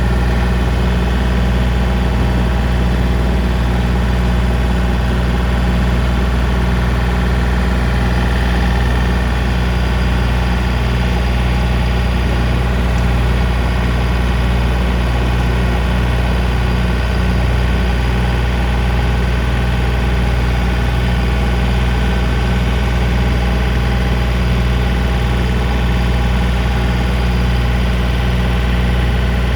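John Deere 3025D compact tractor's three-cylinder diesel engine running steadily at constant speed while driving a brush hog (rotary cutter) through the PTO in first gear, low range.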